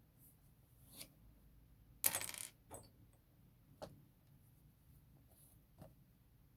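Small hard objects being handled: a single click about a second in, a short clattering rattle around two seconds in, then three more single clicks.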